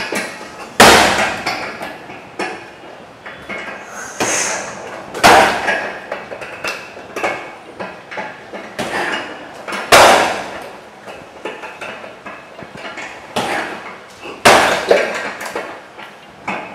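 Heavy punching bag kicked with a bare foot and shin, giving sharp slapping thuds. Four times, a lighter teep to the bag is followed about a second later by a louder right roundhouse kick, the pairs about five seconds apart.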